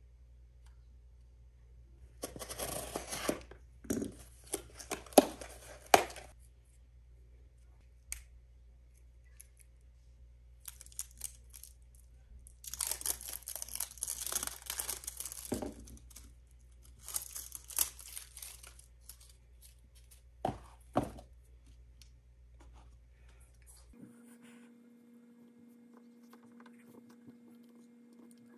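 Packaging being torn open and crinkled in three bouts, followed by two sharp clicks.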